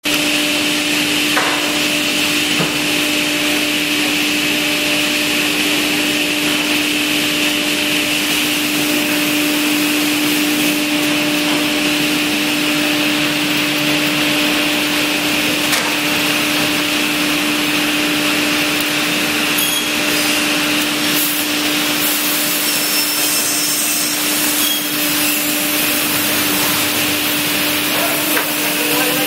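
CNC wood panel saw running: a steady, loud machine noise with a constant hum.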